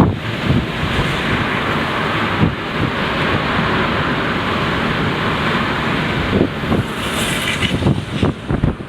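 Typhoon wind and rain: a steady, loud rushing hiss with gusts buffeting the microphone. A stronger gust comes about seven seconds in, and a sharp knock at the very end.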